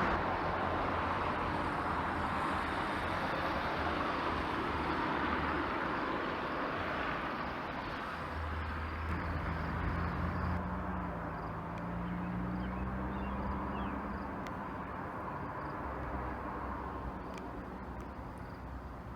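Outdoor noise with a low, steady engine hum that slowly fades. A faint droning tone joins in about halfway through for several seconds.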